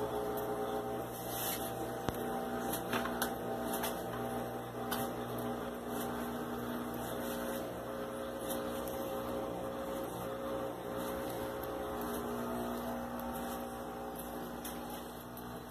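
Steady electrical hum with several held tones, and a few faint clicks in the first few seconds.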